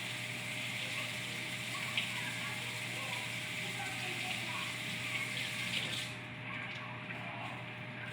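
Steady rush of running water, its high hiss dropping away about six seconds in so the flow sounds duller.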